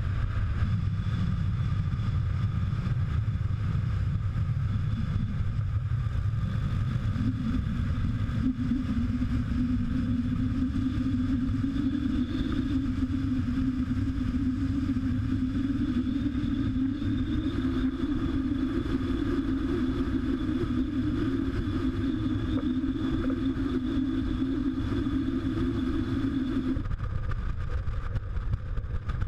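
Cruiser motorcycle running at steady highway speed, its engine drone holding an even pitch over a constant low rush of wind noise. The drone cuts off abruptly near the end.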